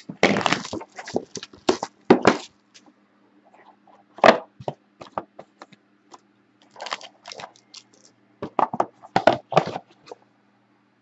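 Plastic shrink wrap being torn and crumpled off a sealed box of trading cards, then the box opened: irregular bursts of sharp crackling, busiest in the first two seconds and again near the end.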